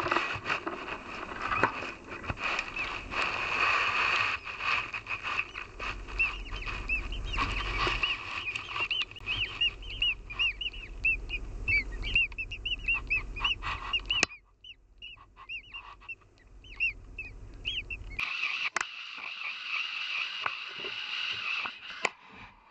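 Great tit nestlings begging in the nest: a rapid chorus of short, high cheeping calls, mixed with frequent knocks and rustles.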